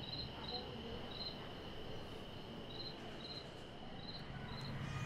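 Crickets at night: a steady high trill with short chirps repeating over it.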